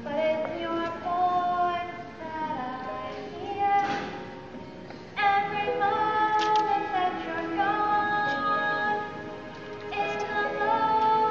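A young female voice sings a slow solo song with musical accompaniment, holding long notes with a slight vibrato.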